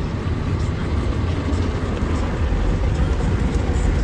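Spinning foam brushes of a PDQ Tandem Surfline automatic car wash scrubbing wet against the car's side window, heard from inside the car as a steady dense swishing over a low rumble.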